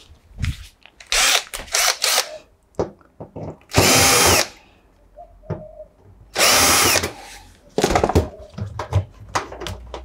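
Cordless drill-driver running twice, about a second each time, spinning up to a steady whine and winding down as it backs out the Phillips screws holding a front-loading washer's door-lock switch; clicks and knocks of handling come between the runs.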